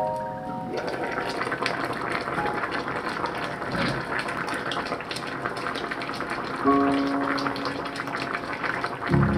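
Red stew simmering in a pot, bubbling with a dense crackle of small bursting bubbles. Soft background music notes sound near the start and again about two-thirds of the way through.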